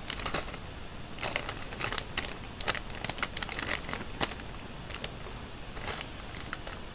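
Crinkly plastic snack-chip bag of Popchips Ridges being handled and torn open: a run of irregular sharp crackles and crinkles, thickest in the middle.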